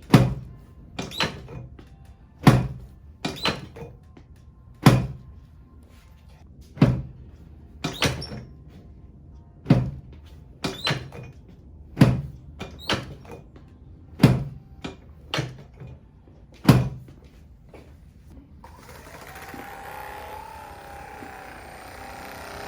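A series of dull thumps at irregular intervals, roughly one a second, some in quick pairs; they stop about nineteen seconds in, and a steady hiss with a faint held tone follows.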